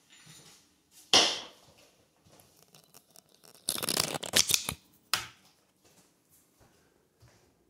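Handling noises: a sharp knock about a second in, about a second of crackly rustling or crunching near the middle, then another knock.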